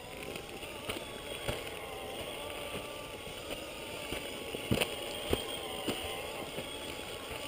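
Scale RC crawler's Holmes Hobbies 27-turn brushed electric motor and geared drivetrain whining steadily as it climbs, the pitch wavering with the throttle. A few sharp knocks come through, the loudest a little past halfway.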